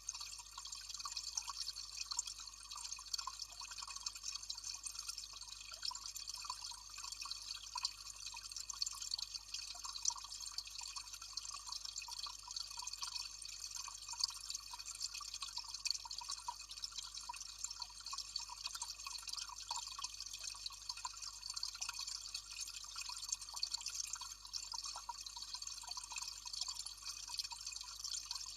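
Water of a small cascade trickling and dripping steadily, a continuous splashing hiss dotted with fine irregular drips.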